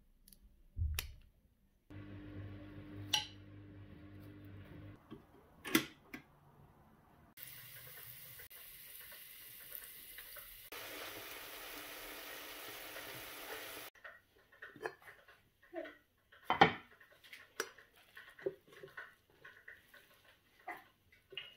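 Kitchen cooking sounds in several short stretches: a thump, a low steady hum for a few seconds, then a steady hiss for about six seconds, then a run of clinks and knocks of utensils against pots and dishes.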